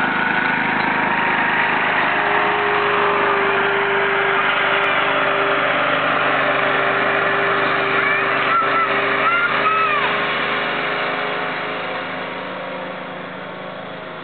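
Riding lawn mower's engine running steadily as the mower drives across a lawn, fading over the last few seconds as it moves away.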